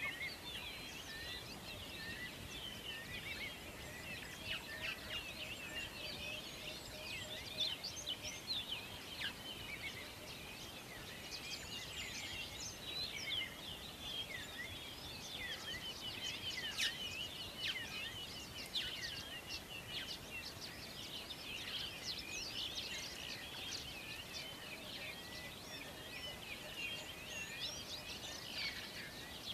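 Many birds chirping together: a dense, continuous chorus of short, high, overlapping calls.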